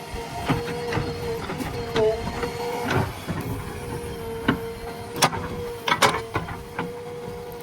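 JCB backhoe loader working, with a steady whine from the machine and irregular clanks and knocks, the loudest a few sharp ones about five and six seconds in.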